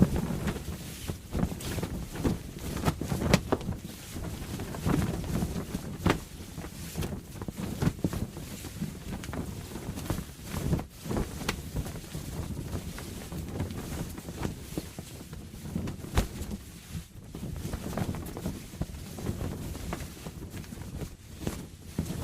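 Canvas sail flapping in a strong wind, snapping sharply at irregular moments over a steady low rush of wind.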